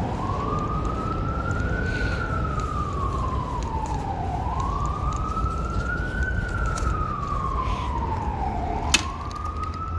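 A siren wailing, its pitch slowly rising and falling about every four seconds, over a steady low rumble. A single sharp click sounds near the end.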